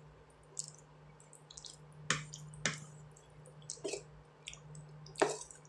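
Wooden spatula stirring broccoli, carrots and pork in a thick, wet sauce in a pan: wet squishing and light crackles, with about five sharp knocks and scrapes of the spatula against the pan.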